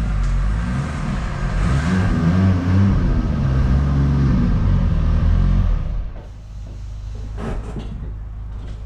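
A vehicle engine running, its pitch rising and falling, that drops to a quieter steady low hum about six seconds in. A few brief clicks come near the end.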